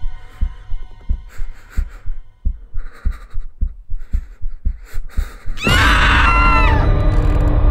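Horror sound design: a heartbeat effect thumping about twice a second and quickening, with faint breathy hisses between the beats, then about five and a half seconds in a sudden loud shrieking jump-scare stinger that settles into a loud sustained tone.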